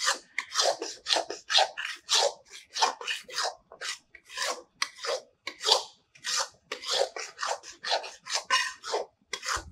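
Steel spatula scraping and stirring a thick halwa mixture around a metal kadhai in repeated strokes, about two a second. The mixture is being roasted (bhuna) in ghee until it browns and stops sticking to the pan.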